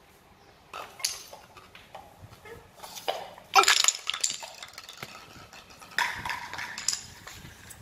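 Plastic toys and blocks clattering and knocking on a hard tile floor as they are handled, in several irregular bursts, the loudest a little past halfway.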